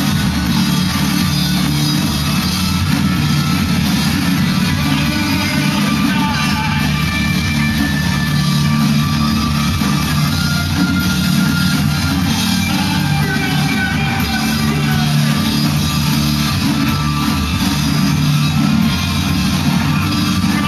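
A rock band playing live and loud: bass guitar, drums and a singer on a microphone, continuous without a break.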